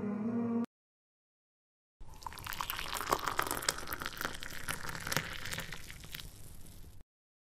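Thick blended milkshake being poured from a plastic blender jar into a glass: liquid splashing and pattering into the glass with many small splats, starting about two seconds in and lasting about five seconds before cutting off suddenly.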